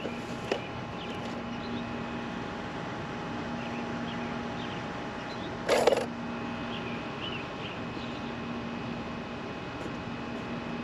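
Outdoor garden ambience: a steady low hum with faint, scattered bird chirps over it, and one brief rustle or knock about six seconds in.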